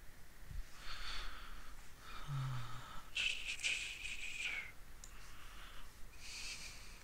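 A person breathing close to the microphone: four hissing breaths in and out, one with a short low hum of the voice, and a few faint clicks partway through.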